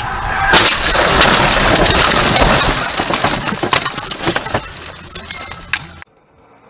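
A vehicle crash: a sudden loud impact about half a second in, followed by a long rush of crunching noise with scattered sharp clinks of breaking glass and debris, fading before it cuts off abruptly near the end.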